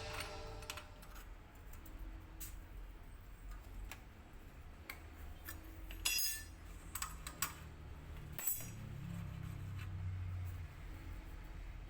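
Scattered light metallic clinks and taps of small metal parts or tools being handled, irregular and loudest about halfway through, over a faint low hum.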